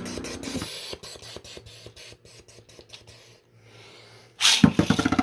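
3D-printed Beyblade spinning tops clacking against each other and the plastic stadium in a rapid series of sharp clicks, dying down briefly, then a sudden loud burst of sound near the end.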